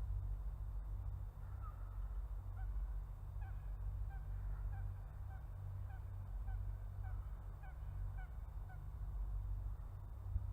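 Geese honking some way off, a run of about a dozen short calls roughly two a second, stopping near the end. A steady low rumble of wind on the microphone runs underneath.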